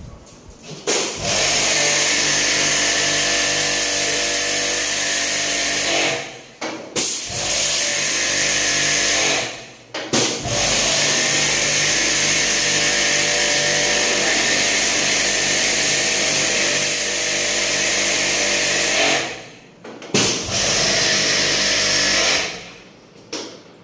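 Electric pressure washer running with its spray hissing, in four long stretches of several seconds each, briefly cut off between them and stopping shortly before the end.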